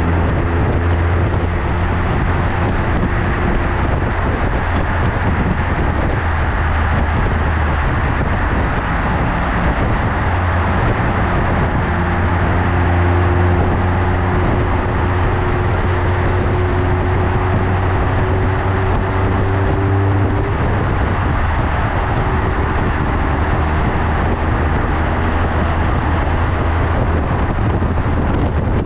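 Motorcycle exhaust through a Yoshimura Slip-On Oval Cyclone muffler while riding, a steady low engine note whose pitch rises gently partway through, under heavy wind noise on the microphone.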